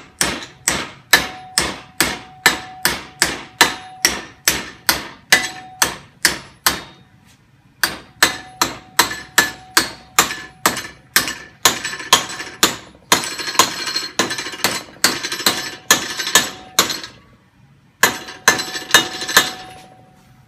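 Heavy hammer striking a metal bracket clamped in a bench vise to bend it over. The blows are steady, about two to three a second, each with a short metallic ring, in three runs with brief pauses about a third of the way in and near the end.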